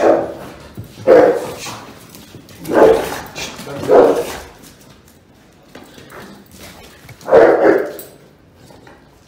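Muzzled Rottweiler barking: four loud barks, spread unevenly, with a longer gap before the last.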